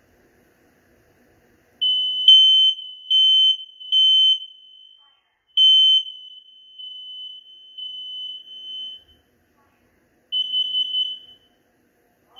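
Smoke alarm sounding during a test: a piercing high-pitched electronic beep, three loud beeps then a fourth, a fainter steady tone for a few seconds, and one more loud burst near the end.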